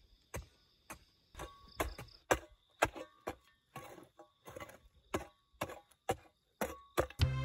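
A steel hoe chopping into dry, lumpy soil to shape a raised planting bed, about two strikes a second. A faint, steady insect chirr sounds underneath, and music comes in near the end.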